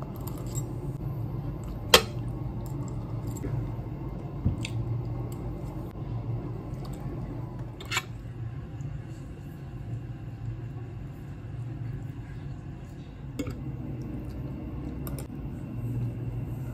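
Fork and spoon clinking against a china plate during a meal, with sharp clinks about 2 s and 8 s in and a few lighter ones near the end, over a steady low hum.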